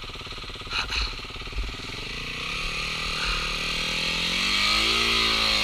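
Off-road dirt bike engine idling, then revving up steadily for about three seconds and dropping back near the end as the bike pulls away on the trail.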